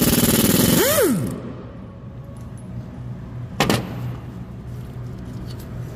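Impact wrench hammering through a 19 mm pinless impact swivel socket on a rusted bolt, loud and rapid, stopping about a second in with a brief whine that rises and falls as the bolt breaks. A single sharp knock follows a couple of seconds later.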